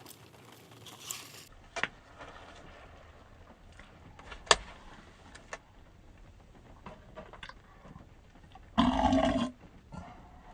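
A few sharp clicks and smacks while eating, then a single loud, low burp lasting under a second near the end.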